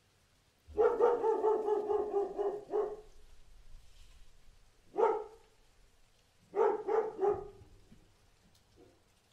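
A dog barking: a quick run of barks in the first few seconds, a single bark about five seconds in, then a short burst of three barks and a faint last one near the end.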